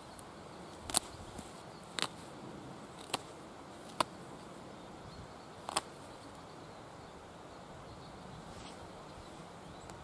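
Knife blade cutting shavings from a wooden stick: five sharp, separate cuts about a second apart, the loudest about a second in, then only a faint steady background hiss for the last few seconds.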